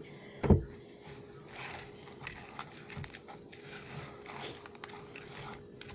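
A sharp knock about half a second in, then soft intermittent scraping and small clicks of utensils against a plastic bowl, over a faint steady hum.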